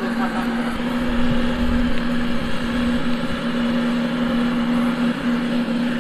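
Electric blower running steadily, forcing air into a charcoal-fired metal-melting furnace: a constant motor hum over a rush of air, with a brief dip about five seconds in.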